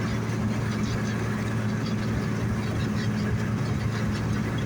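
John Deere combine running steadily while harvesting barley: a constant low engine drone with an even mechanical noise over it.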